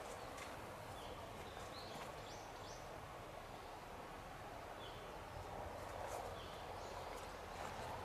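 Outdoor ambience: a steady background hiss with a few short, high bird chirps about two seconds in and again after five seconds, and a few faint clicks like footsteps.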